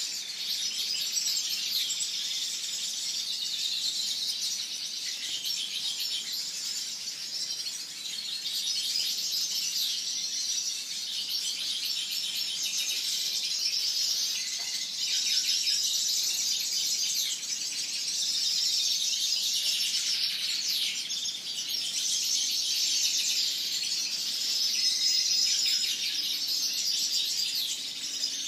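Dense chorus of many caged finches, European goldfinches among them, singing and twittering at once: an unbroken jumble of high chirps and trills.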